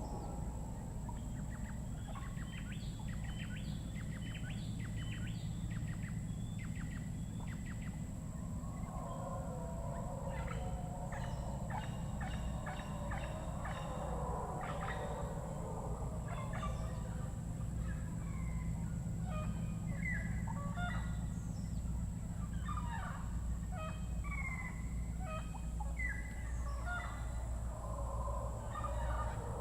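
Tropical rainforest birds calling: rapid series of short, high notes, and from about nine seconds in a lower, gobbling, warbling chatter, over a steady high insect whine and a constant low rumble.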